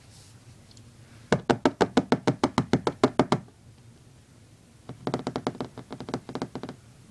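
Two quick runs of sharp, even knocking, about eight knocks a second. The first run is louder and lasts about two seconds; the second comes a little later, softer and about as long.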